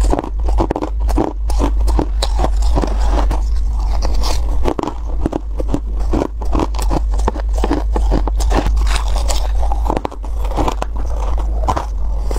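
Freezer frost being chewed close to the microphone: a dense, continuous run of crisp, crunchy bites.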